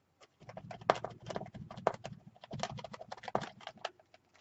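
Rapid, irregular tapping and dabbing of paint onto a journal cover, many quick taps over about three seconds.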